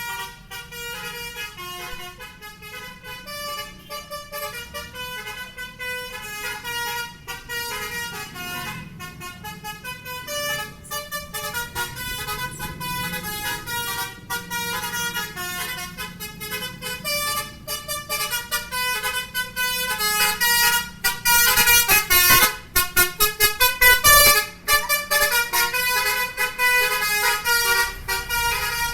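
Bus 'telolet' basuri multi-tone air horn playing a quick melody of short honked notes, over and over. It gets louder about twenty seconds in.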